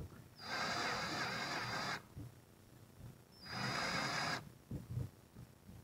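High-speed handheld rotary tool with a cutting bit routing into wood, run in two short spells with a steady high motor whine, cutting the slot for a recessed keyhole hanger. A few soft knocks of handling follow near the end.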